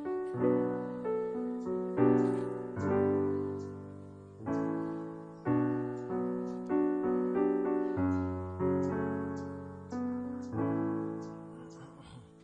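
Slow, gentle solo piano music: notes and chords struck every second or so, each left to ring and fade.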